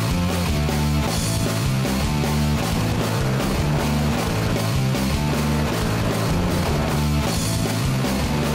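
Hard rock theme music with electric guitar and drums, built on a steady repeating riff.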